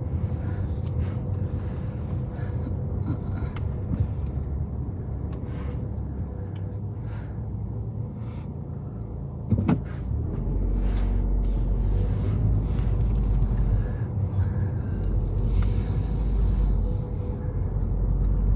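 Car cabin noise while driving: engine and tyre rumble that gets louder and deeper about halfway through, with a single sharp knock just before that.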